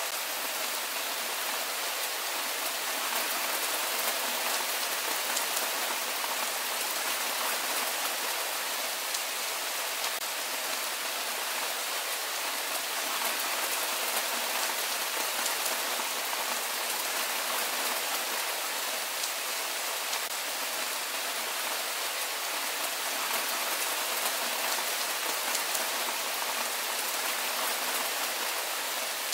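Steady rain falling: an even hiss of many small drops, unchanging throughout.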